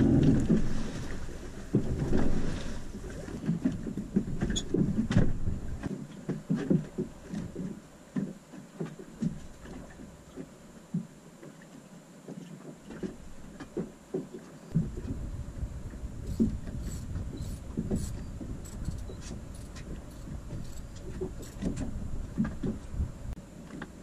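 A small boat's engine falls away in the first couple of seconds. Water then laps and knocks against the fibreglass hull, with scattered clicks and clinks as the anchor, its rope and chain are handled at the bow.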